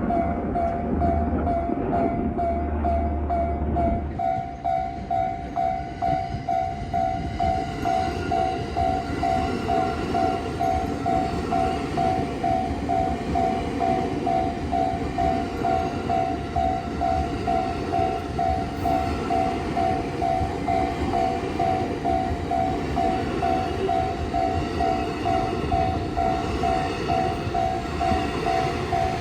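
Japanese railway level-crossing alarm ringing its electronic 'kan-kan' bell steadily, about two strokes a second, while a train runs past with a steady rumble that is heaviest in the first few seconds.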